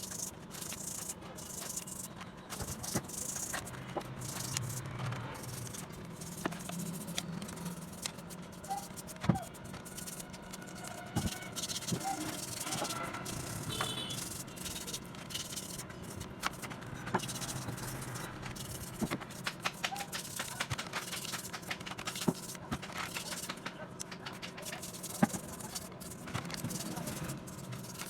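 Irregular clicking and rattling of hand tools and small metal parts being worked on, over a faint steady hum.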